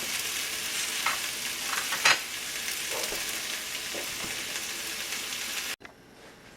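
Spinach and carrots sautéing in a frying pan: a steady sizzle with a few short clicks about a second apart. It cuts off abruptly near the end.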